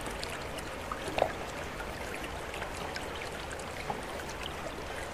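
Steady trickle of running water, with scattered faint ticks and a soft knock about a second in as a small cardboard box is handled.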